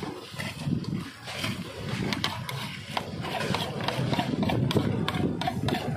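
Wind buffeting the microphone in an uneven low rumble, over which come many irregular sharp clicks and crackles.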